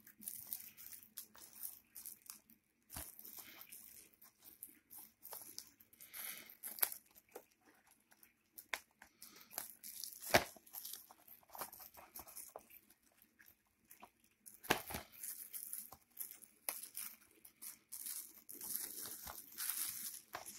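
Plastic wrapping being torn and crinkled off a DVD box set, with scattered clicks and a few sharper snaps as the packaging is handled, sharpest about ten and fifteen seconds in.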